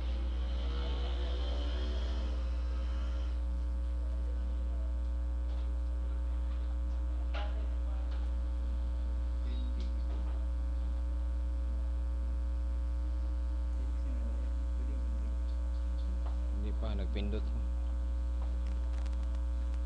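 Steady low electrical mains hum, with faint voices now and then and a few small clicks.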